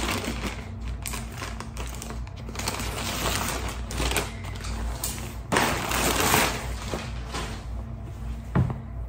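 Plastic packaging rustling and crinkling as it is unwrapped by hand, in a run of irregular crackles with louder spells and a sharp knock near the end.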